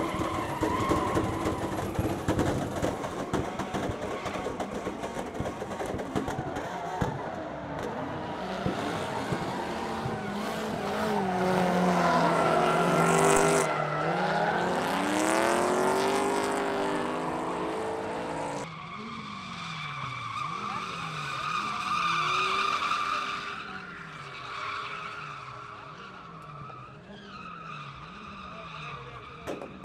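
Drift cars sliding: engines revving hard with pitch sweeping up and down, and tyres squealing. In the last third, one engine's note drops and jumps back about once a second, under a steady high tyre squeal.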